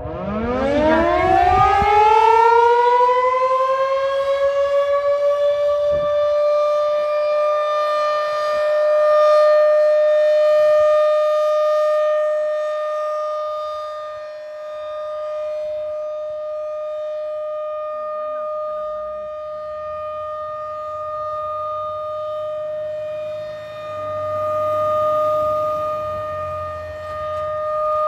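Federal Signal 2001-SRN rotating outdoor warning siren winding up from a low pitch and settling into a steady alert tone during a monthly test. The loudness swells and fades slowly as the horn rotates.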